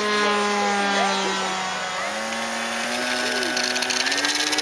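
Model glider's nose-propeller motor running steadily, then stepping up in pitch twice, about halfway through and near the end, as it is throttled up for the takeoff roll.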